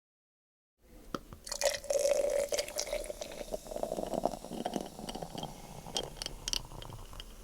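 Beer poured into a glass: a liquid stream starting about a second in, loudest in its first couple of seconds, then easing off into fizzing with scattered sharp clicks.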